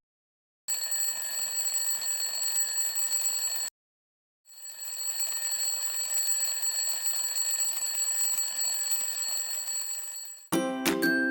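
Mechanical alarm clock bell ringing with a rapid hammer rattle, in two bursts: a short one, then a brief pause, then a longer one.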